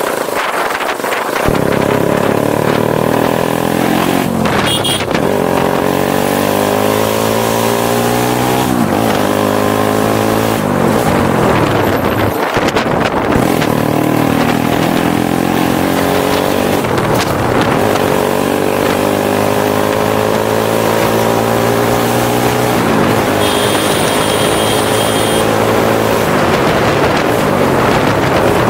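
Motorcycle engine under way, its pitch climbing for a few seconds and then dropping, over and over as the rider accelerates and shifts, with wind rushing over the microphone. A brief high steady whistle-like tone sounds near the end.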